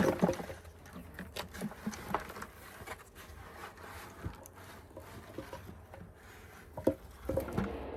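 Sweet potatoes tipped out of a 5-gallon bucket onto a table. A cluster of knocks comes right at the start, then scattered light knocks and rustles as the tubers settle and are moved about.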